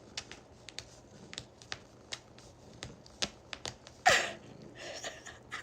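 A series of light, irregular clicks and taps, with a louder short sound about four seconds in.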